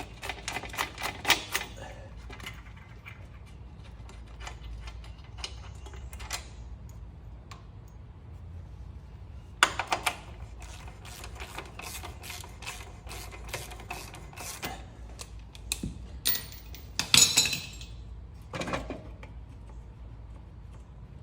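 Metal hand tools and parts clinking and clattering in irregular runs of sharp clicks. There are louder clanks about halfway through and again near the end.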